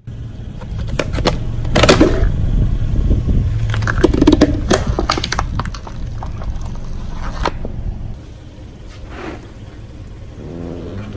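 A car's tyres rolling slowly over objects, with a low rumble of engine and tyres and a series of cracks and crunches as things are crushed. The crunches are loudest about two seconds in and again around four to five seconds in, and the rumble eases off in the second half.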